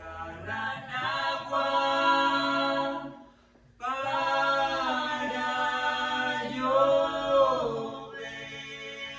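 Unaccompanied singing in long held notes: one phrase, a short break about three seconds in, then a second, louder phrase that eases into a quieter held tone near the end.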